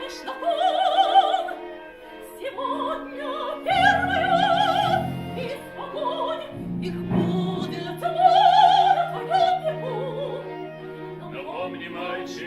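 Operatic singing with orchestral accompaniment: a high voice with a wide vibrato holds three long notes, over low sustained notes in the accompaniment.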